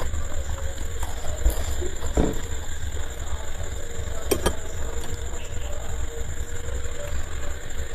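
A steady low mechanical hum runs throughout, with a few soft clicks, two close together about halfway, as luchi is torn and dipped by hand into a ceramic bowl of ghugni.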